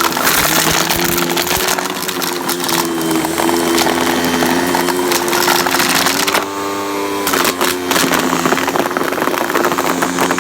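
Hoover vacuum cleaner running: a steady motor hum under a loud rush of air, the hum wavering slightly in pitch. Its tone changes briefly about six and a half seconds in.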